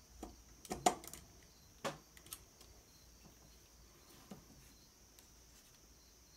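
A few light clicks and taps from handling a black hard drive caddy that is screwed to an aluminium laptop plate, mostly in the first two and a half seconds, with one fainter tap about four seconds in.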